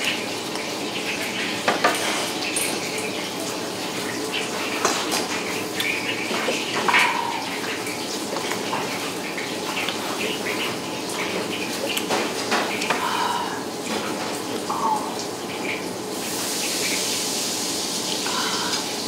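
Eating at a table: chopsticks and ceramic bowls clinking, with sips from a bowl held to the mouth, over a steady background hiss like running water.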